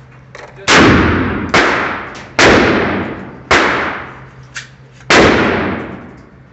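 Gunshots from a semi-automatic firearm: five loud shots spaced roughly a second apart, each with a long echoing tail. A fainter, shorter crack comes about four and a half seconds in.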